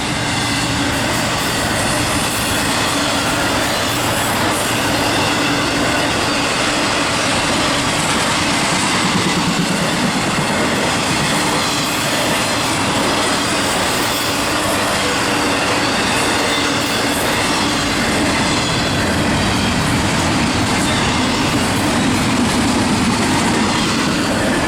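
CSX freight train's cars rolling past at speed, a steady loud rumble and clatter of steel wheels on the rails.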